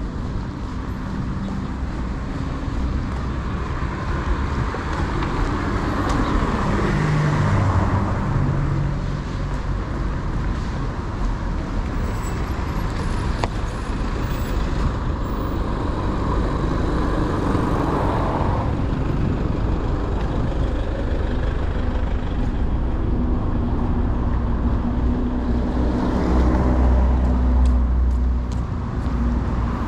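Road traffic: cars and other motor vehicles passing, their engines and tyres swelling in level as each goes by, loudest about a quarter of the way in and near the end, over a steady low rumble.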